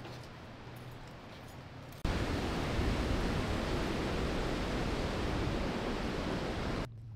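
Loud, steady rushing of a flooded, muddy river churning over a low dam. It cuts in abruptly about two seconds in and cuts off just as suddenly near the end, after a quieter stretch of faint outdoor hum.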